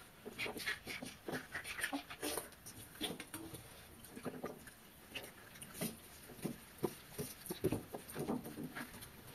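Eating by hand: fingers squishing rice in water-rice in steel bowls, with chewing and lip smacks, heard as many short, irregular wet clicks and squelches.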